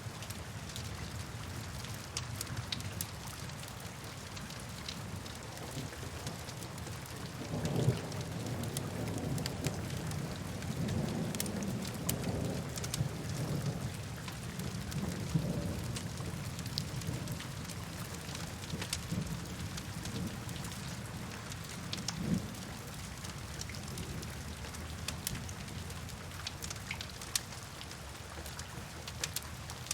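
Steady rain falling, with scattered fine drops. A low roll of distant thunder rises about a quarter of the way in and rumbles for several seconds, and a shorter rumble follows later.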